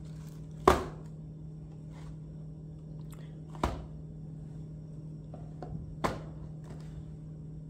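A cardboard sunglasses box is set down and moved about on a laminate countertop: three sharp knocks roughly three seconds apart, the first the loudest, with a few faint clicks, over a steady low hum.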